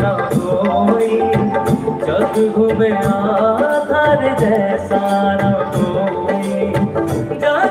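Live band music over a concert PA: a Hindi film song played with a steady drum and tabla-style beat under a melody line.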